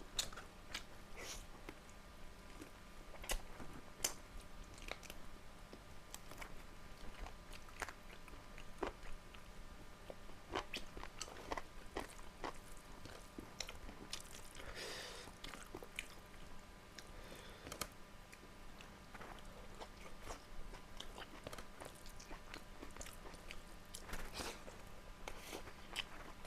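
A person chewing and biting into a roast chicken leg, with many short wet clicks and crunches of the mouth and teeth. There is a longer rustling patch of chewing about halfway through.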